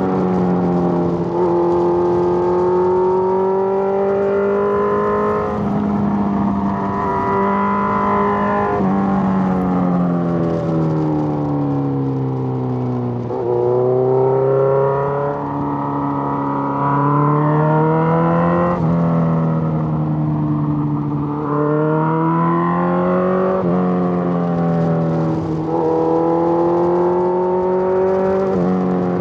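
Suzuki GSX-R1000 inline-four engine heard from the rider's seat, its pitch climbing and falling as the bike accelerates and slows through curves. Several sudden pitch jumps mark gear changes.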